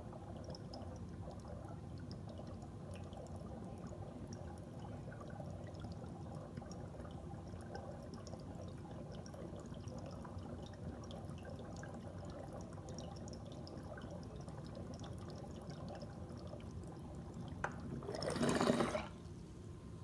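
Water bubbling softly in a glass bubbler's percolator as vapor is drawn steadily through it during a long hit. Near the end there is a click and then a brief louder whoosh lasting about a second.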